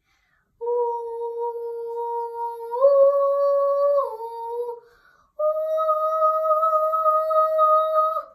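A young girl singing unaccompanied, holding long wordless notes: one steady note that steps up a tone about three seconds in and back down a second later, then after a short breath a longer, higher held note that ends the song.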